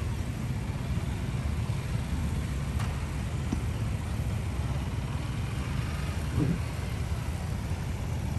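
Several motorcycles idling and riding slowly, a steady low engine rumble, with a brief rising rev about six and a half seconds in.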